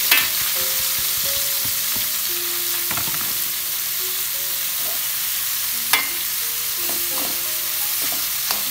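Shredded cabbage and carrot sizzling steadily as they stir-fry in hot oil in a metal wok. A metal spatula clinks against the pan a few times as the vegetables are stirred.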